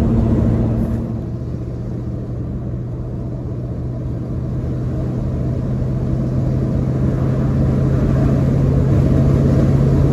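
Old pickup truck's engine and road noise heard from inside the cab while driving, a steady low hum. It quietens about a second in, then slowly grows louder again.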